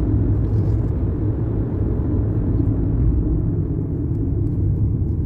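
Steady low rumble of a car driving on the road, heard from inside the cabin: tyre and engine noise with no pitch to it.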